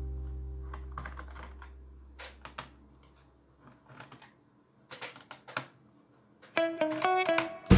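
Light, scattered clicks and taps as hands handle a laptop's plastic case, with background music dying away at first and coming back in loudly near the end.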